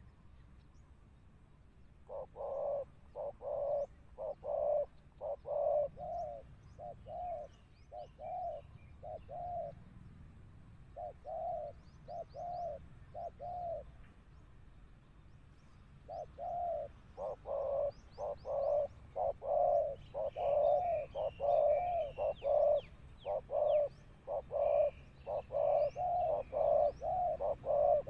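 Spotted doves cooing: series of short, low notes that start about two seconds in, break off briefly around the middle, then resume thicker and faster to the end. Faint high chirps of small birds sound in the background.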